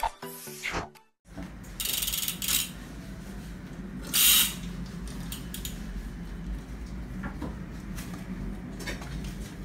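A short music jingle ends in the first second. Then come handling noises from a bicycle's crank arm and pedal being gripped and moved: a couple of brief rattling scuffs, the loudest about four seconds in, and a few light clicks later, over a steady low room hum.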